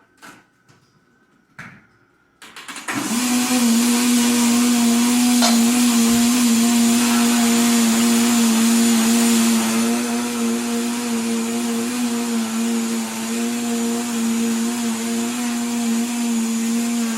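Countertop kitchen blender switched on about three seconds in and running at a steady speed, mixing a liquid chocolate cake batter. A few light clicks come before it starts.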